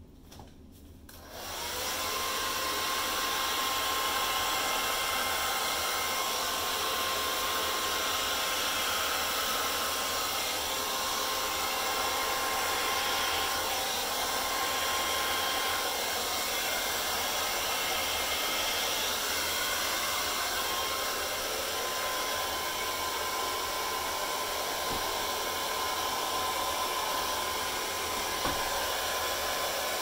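Handheld hair dryer switched on about a second and a half in, then running steadily with a faint whine, blowing wet acrylic paint outward across a canvas.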